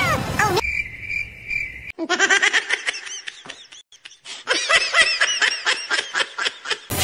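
Cartoon sound effect: a short pulsing high beep, then a fast run of high-pitched chirps like squeaky, sped-up laughter.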